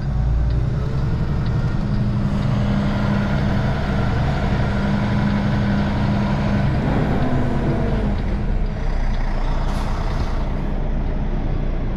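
Semi-truck's diesel engine running at low revs, heard from inside the cab as a steady low hum; its tone shifts about seven seconds in.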